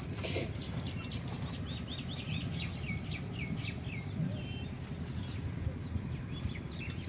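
Small birds chirping in a quick run of short calls, thinning out after about four seconds, over a steady low rumble.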